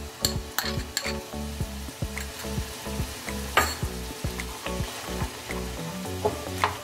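Wooden spatula stirring chopped vegetables in a steel kadhai, with repeated knocks and scrapes against the pan over the sizzle of the vegetables sautéing in butter.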